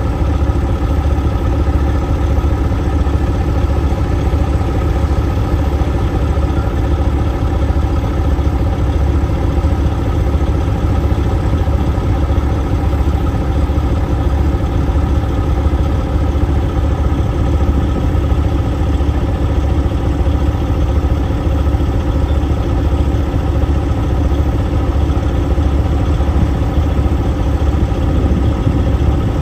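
Heavy diesel engine idling steadily, a constant low drone with no change in revs.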